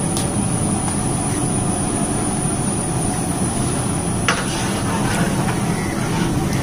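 Steady low roar of a cooking fire turned up high under a large pot of rice water being brought to the boil. A short clink sounds about four seconds in.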